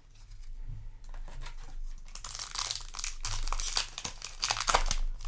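Foil Yu-Gi-Oh! booster pack wrapper crinkling and tearing as it is handled and ripped open, a run of dense crackling that is loudest near the end.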